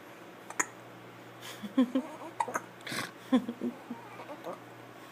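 A baby hiccuping: a sharp hic about half a second in, then a run of short, squeaky baby sounds with another hic-like gasp in the middle.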